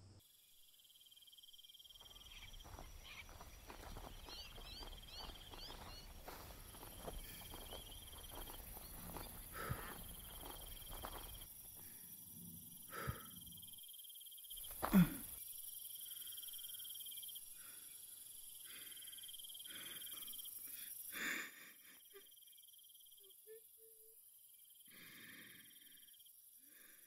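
Forest ambience of insects buzzing steadily at several high pitches. For the first ten seconds or so, footsteps rustle through undergrowth, with a few short chirps. A sharp crack about fifteen seconds in is the loudest sound, with a second one about twenty-one seconds in.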